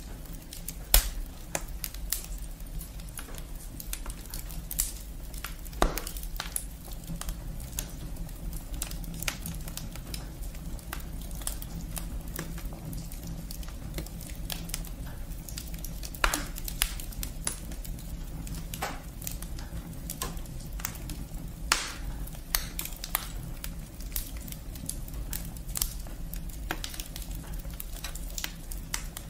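Wood fire burning in a fireplace, crackling continuously with many small pops and a few louder snaps, over a low steady rumble.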